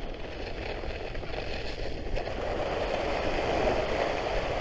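Steady scraping hiss of Trikke Skki ski blades sliding over cold, dry snow, swelling a little about three seconds in.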